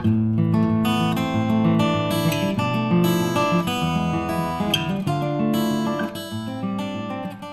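Background music of strummed acoustic guitar, fading down near the end.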